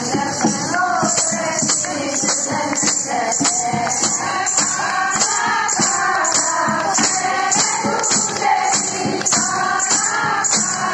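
Group of women singing a folk song together over a jingling percussion beat, about two strokes a second.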